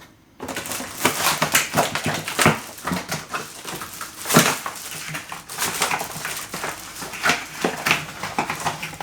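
Rustling and crinkling of packaging as a mechanical keyboard is unpacked from its box, a steady run of short scrapes and crackles.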